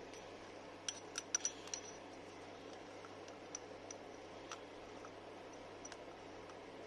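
Small metal objects clinking and clicking lightly: a quick cluster of five or so sharp, ringing clicks about a second in, then a few fainter single clicks, over a steady low hiss.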